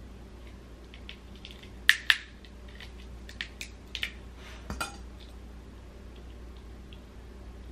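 Sharp clicks and clinks of a metal seafood cracker and pick working on a crab-leg shell: two loud clicks about two seconds in, then a handful of lighter ones.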